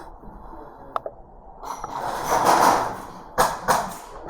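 Two sharp cracks about a third of a second apart, after a single faint click and a rushing swell of noise.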